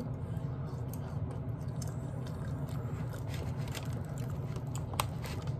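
Fingers pulling apart sauced barbecue ribs over clear plastic takeout containers: scattered small clicks and sticky handling noises, with one sharper click about five seconds in. A steady low hum runs underneath.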